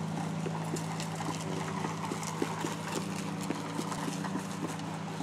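Plastic toy truck rolling and rattling over asphalt, with a child's boot footsteps, giving an irregular patter of light clicks and knocks over a steady low hum.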